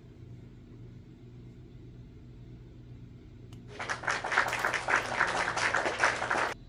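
Audience applause sound effect that comes in about four seconds in and cuts off abruptly near the end, over a faint low steady hum.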